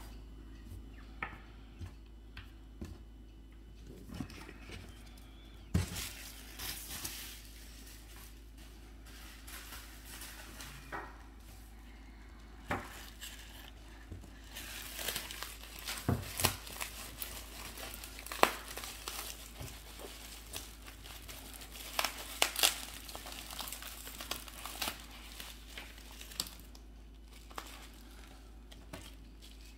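Bubble wrap crinkling and rustling in the hands as small miniatures are unwrapped, in irregular spells with sharp clicks now and then, busiest in the middle stretch.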